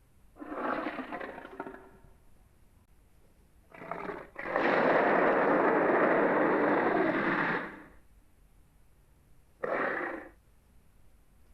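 A person imitating a dragon with the voice: a short growl, then a brief burst and a long breathy, rough roar of about three seconds, then one more short growl near the end, with silence between them.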